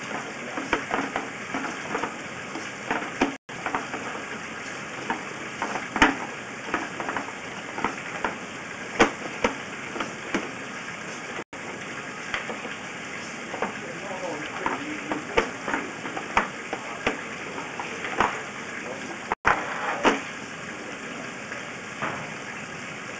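Sewer inspection camera's push cable being pulled back fast through the pipe: a steady crackling hiss with irregular clicks and knocks as the cable is hauled in. The sound cuts out for an instant three times.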